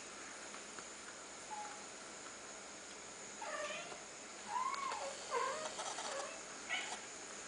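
Scottish Fold kittens mewing: a faint short mew, then a run of about five short, high mews in the second half.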